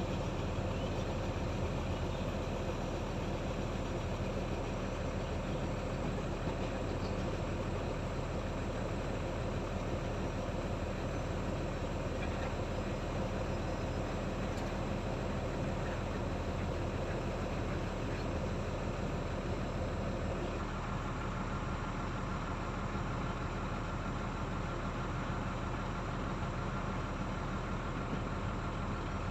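Heavy-equipment diesel engine running steadily at a constant pace, its tone shifting about two-thirds of the way through.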